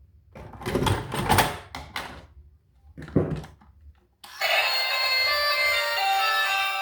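Rustling and knocking handling noises with a sharp click about three seconds in, then music with many steady electronic tones starts a little over four seconds in.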